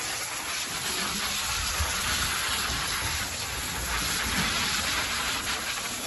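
Garden hose nozzle spraying a jet of water onto the vinyl liner floor of an emptied above-ground pool, a steady rush of water striking the surface as green algae sludge is rinsed off.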